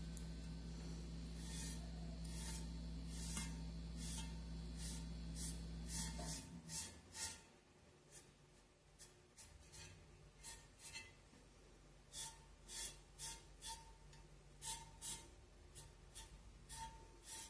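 Faint, repeated short rubbing strokes on a painted vase as bitumen is worked back to lighten it, coming irregularly one or two a second. A low steady hum runs underneath and stops about six seconds in.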